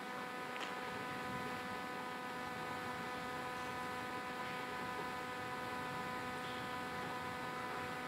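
Steady electrical hum: several fixed high tones held over a faint hiss, with one faint click about half a second in.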